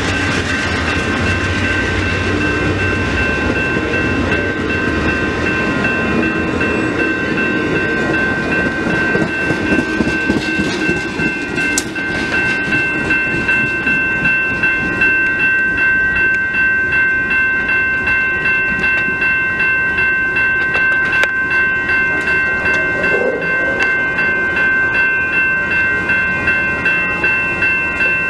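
Amtrak Downeaster passenger train rolling past, its wheels clacking over the rails. A grade-crossing bell rings in even, rapid strokes alongside it. There is a single sharp clank about twelve seconds in.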